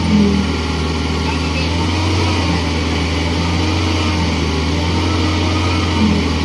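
Excavator engine running steadily with a constant low hum.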